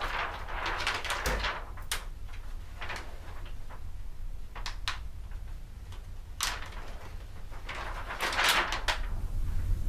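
A large sheet of fabric being handled and hung on a wall: repeated rustling swishes with a few short sharp clicks, over a low steady hum.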